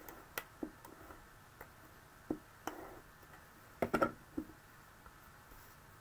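Cardstock layers being handled and set down while a layered card is assembled: scattered small taps and clicks of card on the table, with a cluster of louder taps about four seconds in.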